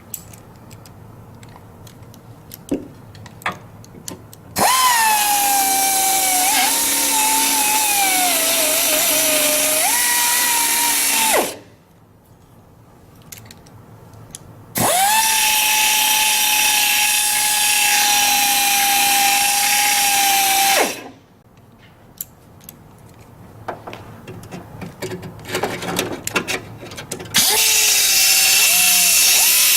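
Dynabrade Auto File II 18100 pneumatic belt sander running in three bursts as it sands into a channel on a metal panel, its air motor giving a high whine over belt hiss. In the first burst the whine sags in pitch, then jumps back up; between bursts there are light clicks and taps.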